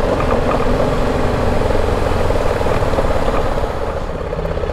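BMW G 310 GS motorcycle's single-cylinder engine running steadily at low speed, easing off slightly near the end as the bike slows.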